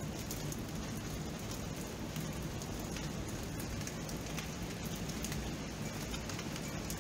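Steady rain falling, an even hiss with many small drops ticking through it.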